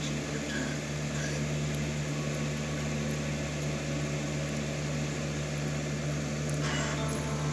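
A steady, low machine hum with a constant drone, unchanged throughout.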